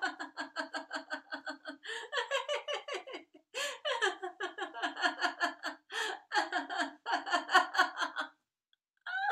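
A woman laughing heartily in a deliberate laughter-yoga exercise: quick runs of "ha-ha-ha", about five or six pulses a second, broken by short catches of breath, stopping a second before the end.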